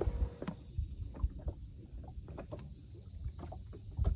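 Small waves slapping against the hull of a boat: irregular knocks and splashes over a low rumble, with a louder thump near the end.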